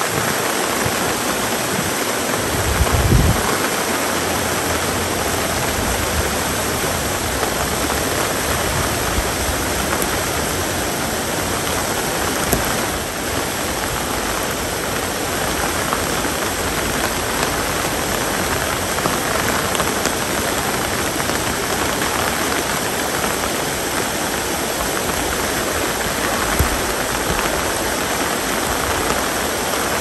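Steady rain falling, a continuous even hiss of water, with a brief low rumble about three seconds in.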